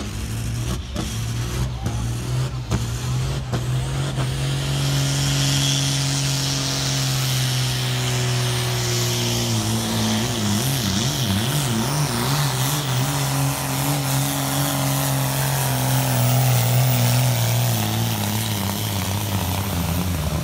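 Farm tractor's diesel engine running flat out under heavy load as it drags a tractor-pulling sled, a loud steady drone that turns wavery about halfway through and drops slightly in pitch near the end.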